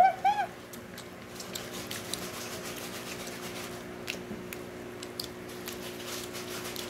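A brief high-pitched squeal of laughter at the very start, then a steady low hum with faint scattered clicks.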